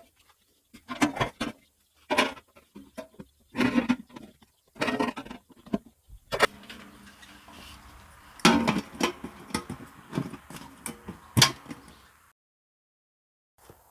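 Irregular knocks and clatters of hand work, a sharp hit every second or so, some with a short ring. The sound cuts off suddenly about twelve seconds in.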